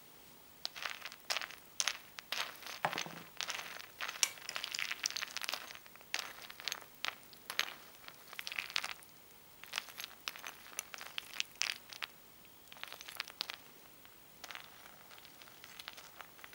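A metal spoon stirring crisp corn-and-oat peanut butter cereal balls in milk in a glass bowl: irregular crackling and crunching strokes with a few short lulls.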